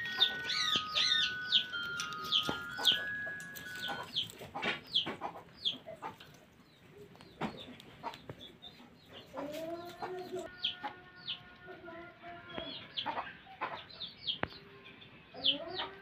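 Bird calls: many short, high chirps that drop in pitch, repeated throughout, with a run of lower clucking calls about ten to thirteen seconds in. A few steady chime-like tones sound in the first few seconds.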